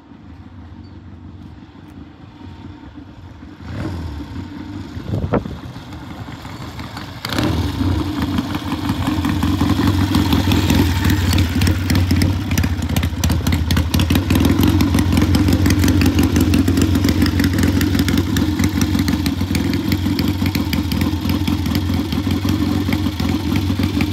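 Vintage British motorcycle engine, warmed up after a test ride: faint at first as the bike approaches, louder about four seconds in, then running steadily close by from about seven seconds in, with fast, even firing pulses.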